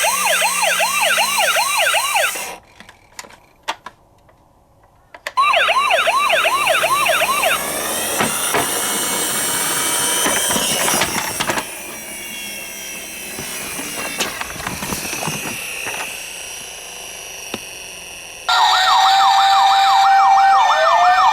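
Electronic toy police car siren in a fast yelp, about four rising sweeps a second, stopping after a couple of seconds with a few sharp clicks, then starting again. Further siren sounds overlap through the middle, and near the end the fast yelp returns over a steady tone.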